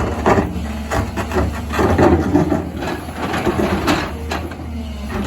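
Excavator's diesel engine running low and steady, with irregular knocks and metallic clatter over it.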